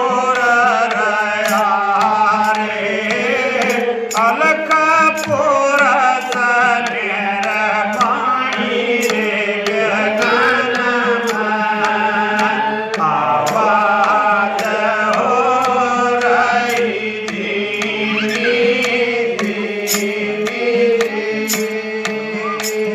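Devotional bhajan music: a gliding melody over a steady drone, with a regular hand-drum beat.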